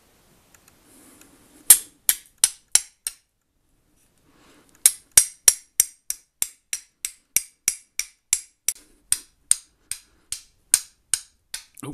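A hand-forged steel fire striker is struck repeatedly against a flint, throwing sparks at a cotton pad. Each blow is a sharp, bright scraping click. There is a quick burst of five strikes, a short pause, then a steady run of about twenty more at roughly three a second.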